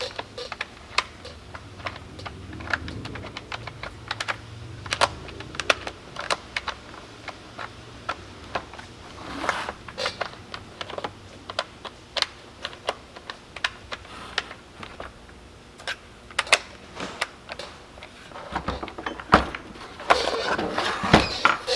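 Irregular light clicks and knocks of a hand tool and metal parts being handled on a small Stihl MS193T chainsaw, as its bar nuts and side cover are worked loose to change the chain.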